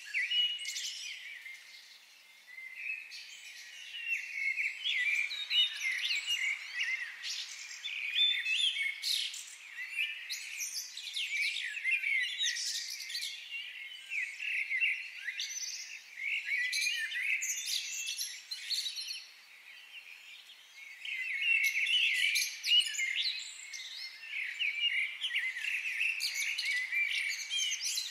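A chorus of many birds chirping and twittering in quick, overlapping short notes, thinning out briefly about two seconds in and again about two-thirds of the way through.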